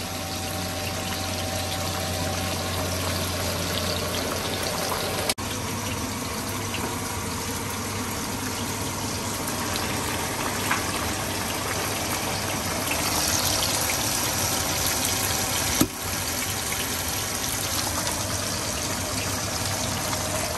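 Steady rush of running water, like a kitchen tap, with two very brief breaks.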